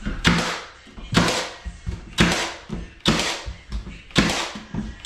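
Cordless nail gun firing nails through baseboard into the wall, a sharp shot about once a second, five times in a row.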